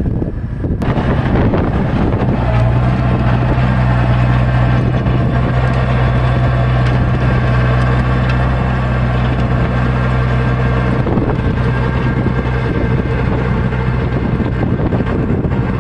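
Massey Ferguson tractor engine working under load in the field, a steady low diesel engine note that is strongest through the middle and eases somewhat near the end.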